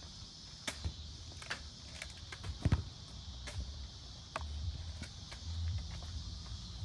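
Scattered sharp clicks and knocks, the loudest a thump about two and a half seconds in, over a low uneven rumble and a steady high hiss.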